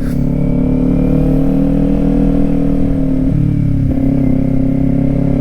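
Kawasaki Ninja 400's parallel-twin engine running at steady, moderate revs while the bike rides along, dipping briefly about three and a half seconds in before settling back to the same steady note.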